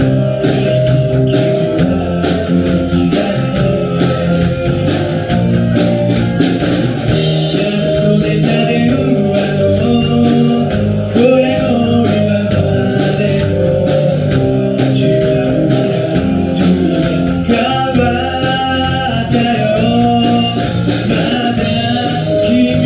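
A man singing a J-pop song live into a microphone, accompanied by electric guitar and backing music, steady throughout.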